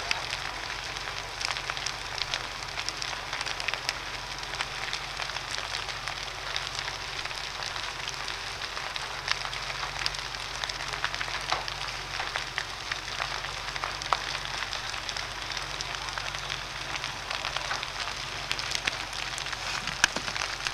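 Large building fire burning, a steady crackling with many small pops and one sharper pop near the end.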